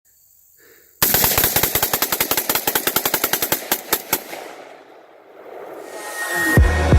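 A long burst of rapid gunfire, about ten shots a second, that slows to a few last shots and dies away. Music with a heavy beat comes in near the end.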